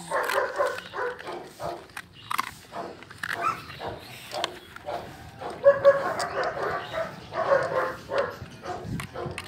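Dogs barking repeatedly in short clustered bursts, loudest about six and seven and a half seconds in.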